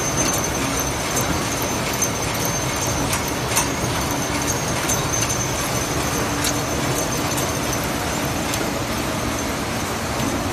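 Automatic plastic cutlery (fork) packing machine running: a steady mechanical din with sharp light clicks at uneven intervals, about one or two a second, and a faint steady high whine.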